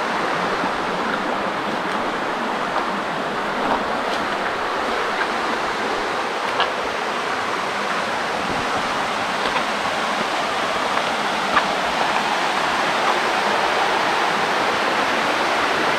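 Small waterfall cascading over boulders into a pool: a steady rushing of falling water, with a few faint clicks scattered through it.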